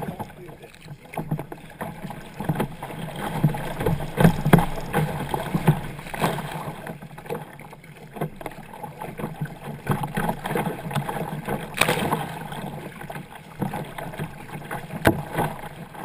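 Sea kayak being paddled through choppy water: water rushes and splashes against the hull and paddle blades, with irregular sharp splashes throughout, the loudest about four, twelve and fifteen seconds in.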